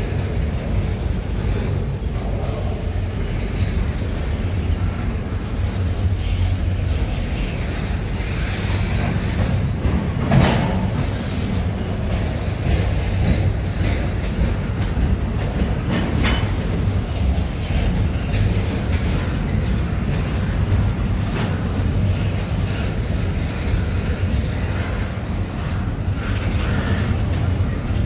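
Canadian National double-stack intermodal freight train, container well cars rolling steadily past: a continuous low rumble of steel wheels on rail, broken by a few sharp clanks, the loudest about ten seconds in.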